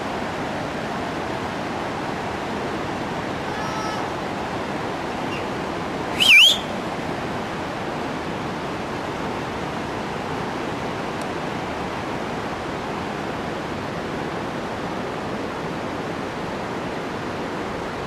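Steady rush of a mountain river running through a gorge below. About six seconds in, one short, sharp, high-pitched chirp rises in pitch and stands out as the loudest sound.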